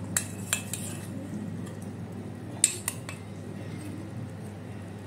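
Metal spoon clinking against a small stainless-steel saucepan as syrup-coated fried khajur sweets are turned in sugar syrup: a few light clinks, the sharpest a little past halfway, over a steady low hum.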